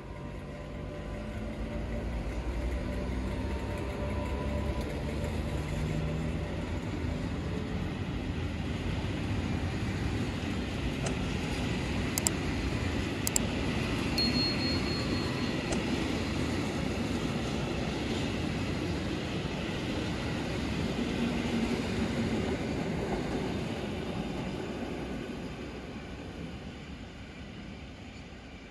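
Electric locomotive 85 632 passing with a train of cement tank wagons. A humming tone from the locomotive comes first, then the steady rumble of the wagons' wheels on the rails, with two sharp clicks and a brief high squeal near the middle. The rumble fades as the train moves away.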